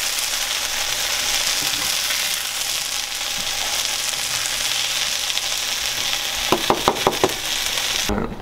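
Diced rabbit meat sizzling in a frying pan, a steady hiss. Near the end comes a quick run of five or six sharp knocks.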